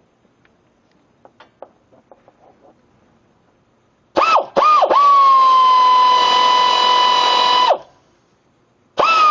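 Pneumatic air ratchet running free: a loud, high whine that dips slightly in pitch just after each start. It comes as two short blips, then a steady run of nearly three seconds, and starts again near the end, after a few faint clicks of handling.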